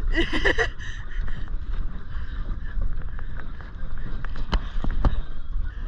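Wind rumbling on the microphone aboard a small boat, with scattered light clicks and knocks of fishing gear being handled and two sharper knocks near the end. A voice calls out briefly at the start.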